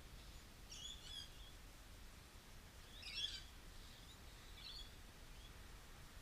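Faint bird chirps: three short bursts of high calls, the middle one the loudest, over a quiet outdoor background.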